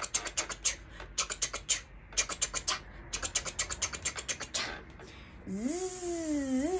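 Quick runs of short clicks, a 'chuc, chuc, chuc' sound of bees at work, in little bursts of about five. About five and a half seconds in, a woman's voice starts a buzzing 'zzz' like a flying bee, its pitch wavering up and down.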